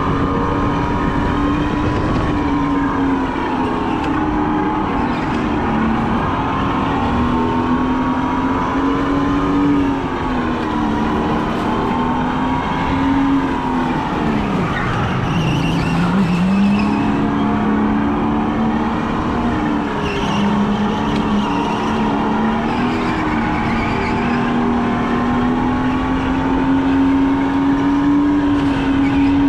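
Go-kart motor heard onboard while lapping, its pitch rising and falling with speed through the corners. It drops low about fifteen seconds in as the kart slows for a tight bend, then climbs again.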